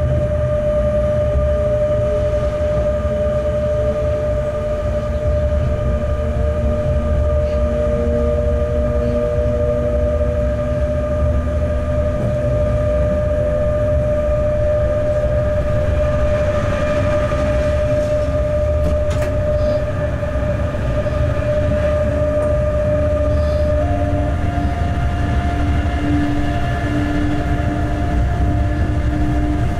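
Locomotive running light along the track, heard from the cab: a steady low rumble with several held machine tones that shift in pitch as it goes, the strongest one stepping up about four-fifths of the way through.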